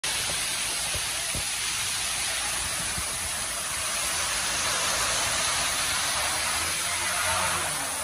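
Steady rush of water from a swollen river in flood, fast brown water surging past bridge piers, with a stream of water pouring from the bridge deck and splashing onto the surface.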